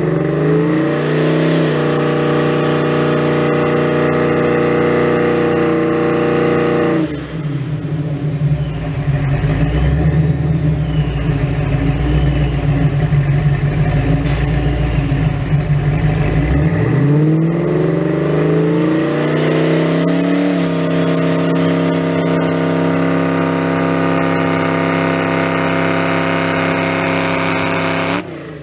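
Vortech-supercharged 347 stroker V8 of a 1990 Ford Mustang run on a hub dyno. It revs up quickly and holds at a steady speed for about five seconds, drops back to a low rumble, then revs up and holds again for about eight seconds before letting off near the end.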